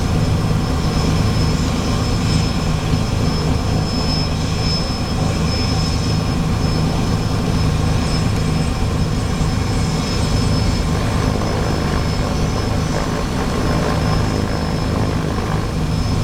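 Single-engine light airplane's piston engine and propeller running at low taxi power, heard inside the cockpit as a steady, even drone.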